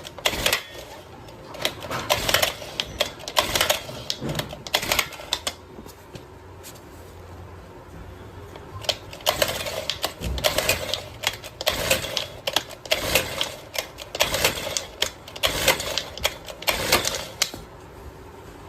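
Recoil starter of a Kisan Kraft KKBC 555 two-stroke brush cutter pulled again and again, a clattering run of clicks with each pull, while the engine turns over without catching. The cause of the no-start is an exhaust silencer choked with dirt.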